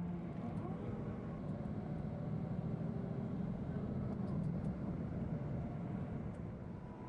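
Engine and road noise of a moving vehicle heard from inside it: a steady low drone under a constant rushing noise.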